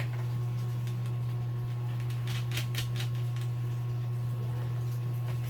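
A steady low hum, with a few light clicks and ticks of small hard parts being handled about halfway through.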